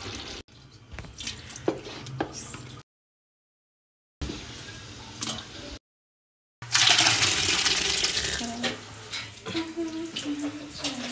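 Wooden spatula knocking and scraping against an aluminium cooking pot as beef liver is stirred, broken twice by short dead silences. About two-thirds of the way in, a loud watery hiss of liquid in the hot pot rises and then eases back under the stirring.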